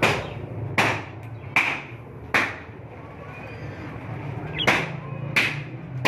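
Repeated sharp blows of something being struck, about one every 0.8 s: four in a row, a pause of about two seconds, then two more. Faint chirps of caged budgerigars and a low steady hum underneath.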